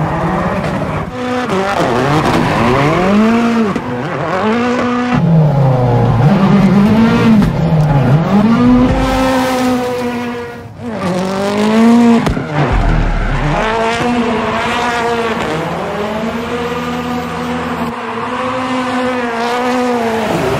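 Ford Fiesta rally car's turbocharged four-cylinder engine revving hard up and down again and again as the car drifts, with tyres squealing.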